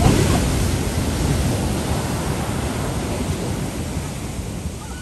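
A heavy shore-break wave crashing. Its whitewater rush is loudest at the start and slowly fades.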